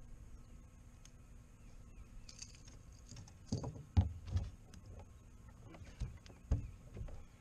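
Scattered thumps and knocks on a bass boat's deck as a bass is lifted from the water and brought aboard by hand. The loudest come about four seconds in, with two more near the end.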